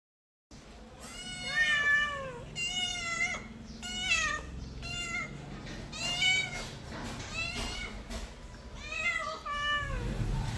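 A cat meowing over and over, about eight separate meows, several rising and then falling in pitch.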